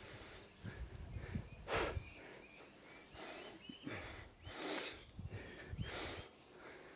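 A person breathing hard while exercising, with three forceful exhales through the nose or mouth, the loudest a little under two seconds in. Faint short bird chirps sound behind.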